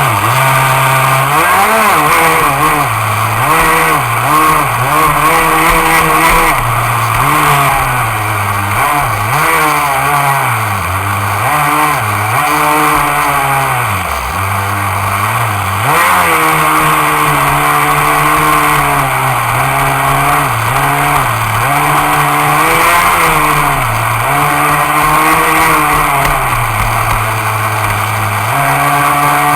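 CEN Gray Thunder RC boat's engine running loud, its pitch rising and falling again and again as the throttle is opened and eased, with a couple of steadier stretches in between.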